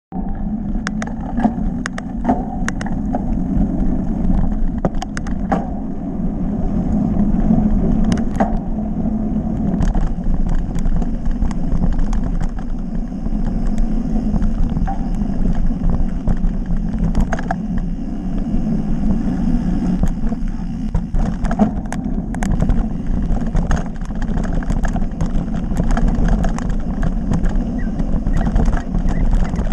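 Wind buffeting a GoPro's microphone at close to 30 mph and tyres rumbling over a dirt trail on a fast downhill bike ride. Frequent sharp clicks and rattles come from the bike over bumps.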